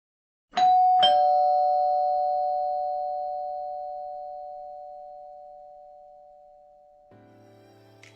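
Ding-dong doorbell chime: a higher note struck, then a lower note about half a second later, both ringing out and slowly fading over several seconds.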